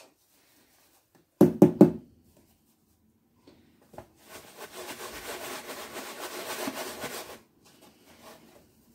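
Three quick knocks about a second and a half in. Then a scratchy rustle lasting about three seconds as raw chicken pieces are shaken in flour dredge inside a plastic tub.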